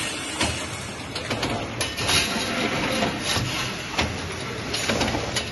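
Automatic fixed-knot field fence making machine running: a steady mechanical clatter, with irregular metallic clicks and knocks from its knotting heads and feed.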